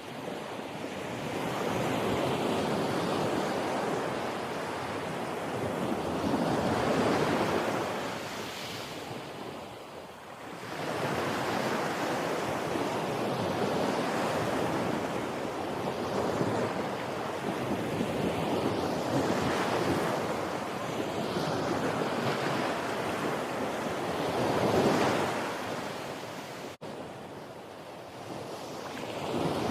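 Ocean surf: waves swelling and washing in, then fading, every few seconds, with a brief dropout about 27 seconds in.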